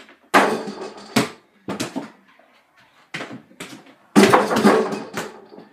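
A mini basketball thudding against a small over-the-door hoop and bouncing on the floor: a string of separate knocks, then a louder cluster of rattling knocks about four seconds in as hands hit the hoop.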